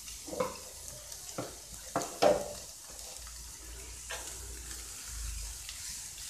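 Sliced collard greens sizzling in hot olive oil and garlic in a frying pan: a steady frying hiss with a few short, sharper crackles as the leaves are moved.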